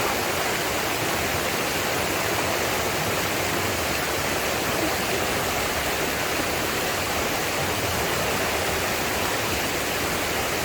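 Steady rushing of a mountain stream, water running over rocks in an even, unbroken wash.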